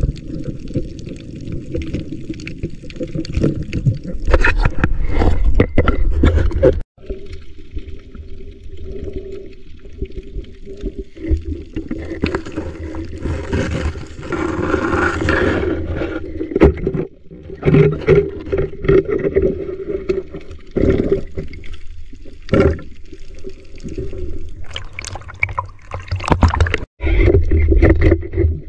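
Muffled underwater sound of a swimmer moving through the sea: a steady low rumble and gurgle of water against the camera, with scattered knocks and clicks and a low steady hum.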